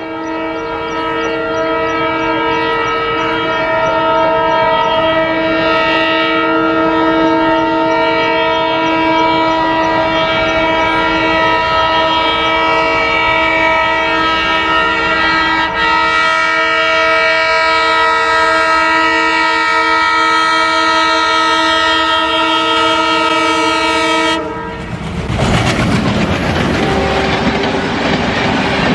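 Indian Railways diesel locomotive horn blowing one long, unbroken warning blast for about 24 seconds as the train nears a level crossing. The horn cuts off suddenly, and the loud rush and clickety-clack of the passing train's wheels on the rails take over near the end.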